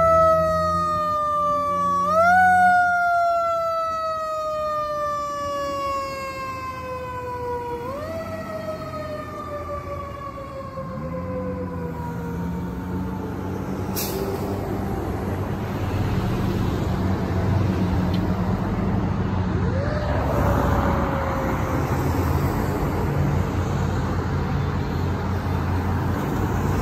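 Fire engine siren rising quickly and then sliding slowly down in pitch, again and again, fading as the truck drives away, with its engine and passing traffic underneath. A sharp click about halfway through.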